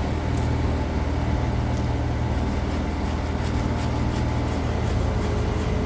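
Backhoe loader's engine running steadily with a deep, even low hum. Light rapid ticking comes in over it during the second half.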